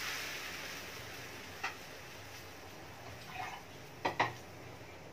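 Quiet hiss from a wok of chicken pieces with freshly added water on the heat, fading away in the first second, with a sharp click about one and a half seconds in and two quick clicks about four seconds in.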